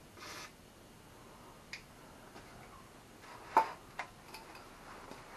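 A short hiss of WD-40 spray from an aerosol can at the start, followed by a few sharp clicks and knocks of the can and tools being handled on a concrete floor, the loudest about three and a half seconds in.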